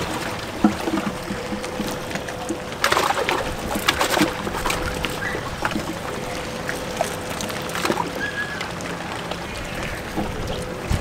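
Water splashing and sloshing in a bass boat's livewell as a smallmouth bass is grabbed and lifted out, with a burst of splashing and knocks about three to four seconds in and smaller clicks later, over a steady faint hum.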